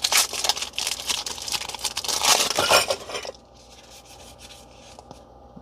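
Foil Pokémon booster pack wrapper crinkling and tearing as it is opened, stopping about three seconds in, after which only faint handling sounds remain.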